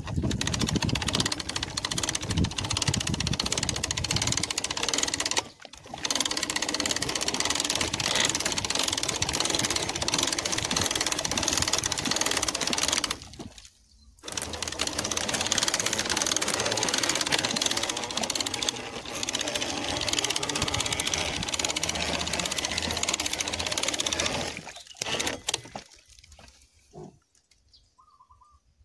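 Motor-driven sprayer running steadily while spraying disinfectant, a machine sound with a hiss of spray over it. It cuts out briefly twice, about five seconds in and near the middle, then dies away near the end.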